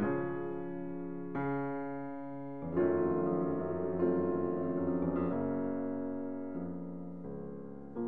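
Slow, gentle piano music: a new chord struck every second or so, each left to ring and fade.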